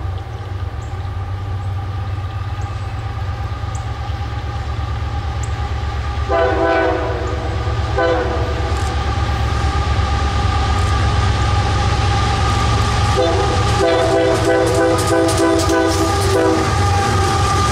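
CSX freight train led by GE AC4400CW diesel locomotives approaching and passing close by, a steady low engine rumble growing louder. The lead locomotive's air horn sounds a long blast about six seconds in and a short one just after, then two more blasts from about thirteen seconds in, the last one long. Near the end, as the locomotives go past, the wheels click sharply on the rails.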